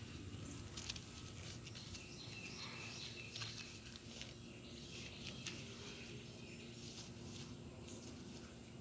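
Faint outdoor ambience: scattered light clicks and scuffs, with a few brief bird chirps in the background.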